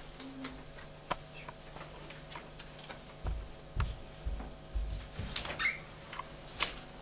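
Quiet room with scattered faint clicks and a few soft low thumps about halfway through.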